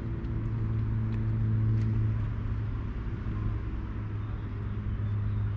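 Boat engine running steadily, a low even hum under a steady hiss.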